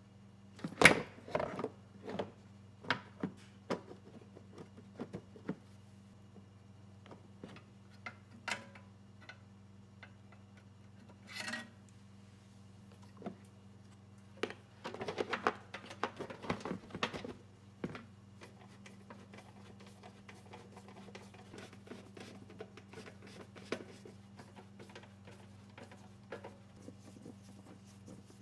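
Plastic engine shroud of a Briggs & Stratton Quantum mower engine being handled and fitted back in place: scattered knocks, clicks and rattles, the loudest about a second in and a busy cluster around the middle, then lighter ticking as a screwdriver works at the engine near the end. A steady low hum runs underneath.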